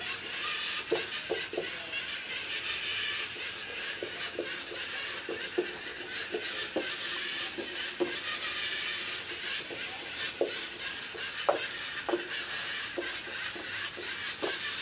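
LEGO NXT robot's servo motors and gear trains whirring steadily as it drives along the line, with soft irregular ticks scattered through it.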